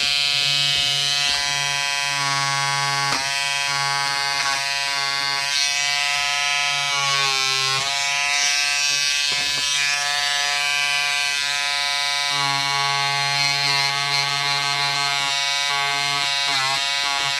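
Wahl Peanut electric trimmer buzzing steadily as it is pressed against machine-embroidery stitches in a cap. The buzz dips briefly in pitch a few times. The stitches are barely shedding, so the trimmer is not cutting them out.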